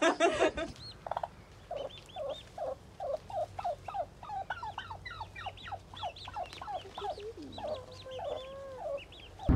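Turkey hen and her poult calling: a steady run of short, high chirps, about two or three a second, with a longer, lower call near the end.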